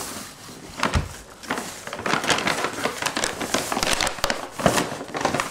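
White paper shopping bag rustling and crinkling as hands rummage inside it and pull out clothes, with a thump about a second in.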